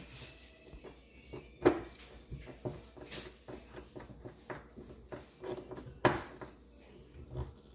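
Light clicks and taps of a cabinet hinge and screwdriver being handled, with two sharper knocks, one about a second and a half in and one about six seconds in.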